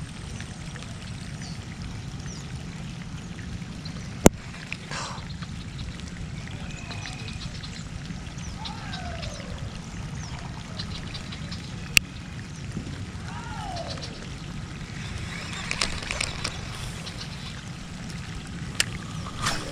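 Outdoor ambience at a pond during bank fishing: a steady low rumble, two sharp clicks about four and twelve seconds in, a few short falling calls, and a quick run of faint ticks near the end.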